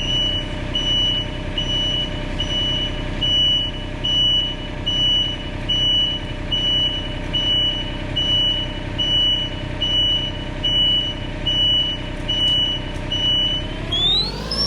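Komatsu PC27 mini excavator running with its travel alarm beeping steadily, about one and a half high beeps a second, as the right track is driven forward. Near the end the whole sound sweeps sharply up in pitch.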